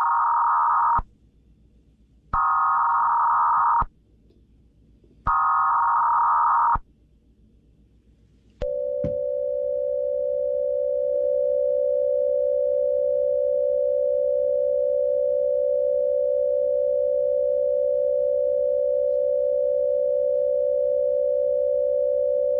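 Emergency Alert System header tones: bursts of buzzing data tone about a second and a half long, with short gaps between them. They are followed about 8.5 seconds in by a long, steady attention tone held to the end.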